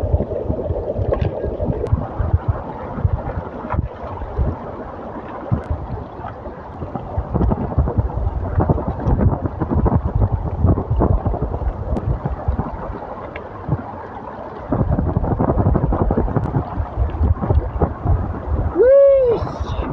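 Water sloshing and splashing irregularly, with wind buffeting the microphone. The sound grows louder about 15 seconds in, and near the end a short pitched sound rises and falls once.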